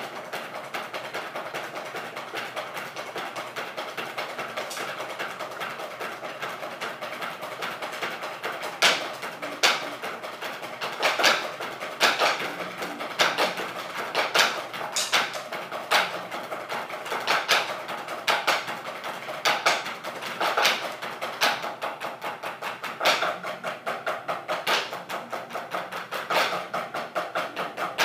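A group of drummers playing a snare solo together with drumsticks on practice pads: a dense stream of rapid stick strokes, with loud accented hits standing out from about nine seconds in.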